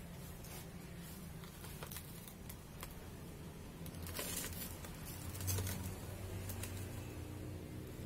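Handling noises from a potted bonsai being turned in the hands: scattered clicks and rustles of the pot and leaves, louder about four to five and a half seconds in, over a steady low hum.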